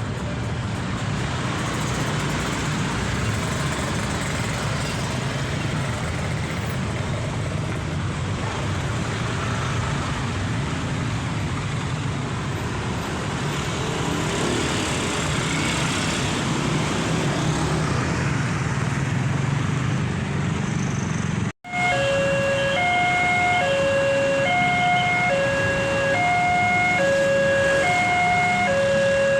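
Road traffic, a steady rumble of passing vehicles. After an abrupt cut about two-thirds of the way through, a railway level-crossing siren starts: a hoarse electronic alarm switching between a lower and a higher tone about once a second, warning that a train is approaching.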